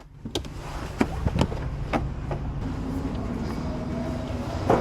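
Cargo van driving: a steady low rumble of engine and road noise, with a few sharp knocks or rattles, the loudest near the end.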